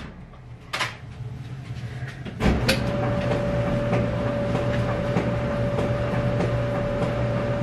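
A knock just under a second in. Then a machine switches on with a click about two and a half seconds in and runs with a steady hum and a steady whine.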